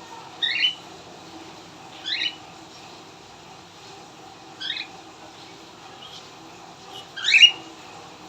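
Cockatiel calling: four short rising chirps a couple of seconds apart, the last one the loudest.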